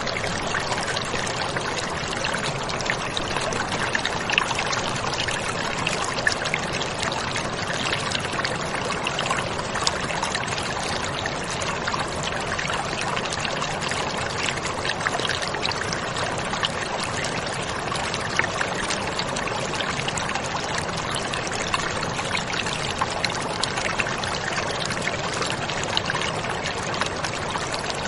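Steady, even rushing noise with small crackles scattered through it, water-like in kind.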